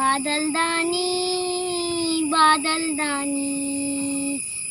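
A young boy singing the opening of a Hindi children's poem in a sing-song melody: two phrases, each ending on a long held note.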